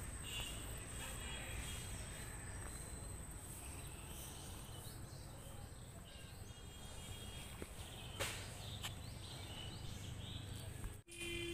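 Rural outdoor ambience: a steady high-pitched insect drone, a few short bird chirps and a low rumble of wind or handling on the microphone.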